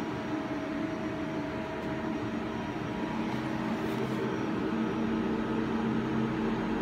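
Steady machine hum of a powered-up Hitachi Seiki NR15 CNC turning center, idling with no cutting, several steady tones held throughout.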